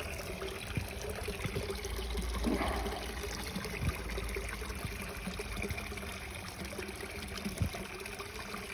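Water trickling and splashing steadily into a garden koi pond, with a brief low rumble about two to three seconds in.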